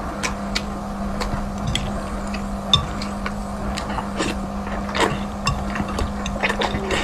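Close-up eating sounds of a person chewing boiled egg and spicy instant noodles: many short mouth clicks one after another, with noodles being slurped in the second half, over a steady low hum.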